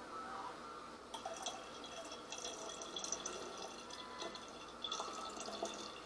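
Plum juice trickling and dripping into a one-gallon glass jug, a thin splashing stream that starts about a second in.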